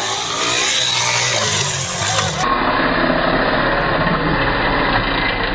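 Dirt bike engines revving hard over rough ground, the pitch rising and falling with the throttle; the sound changes abruptly about two and a half seconds in as a bike climbs a steep dirt slope.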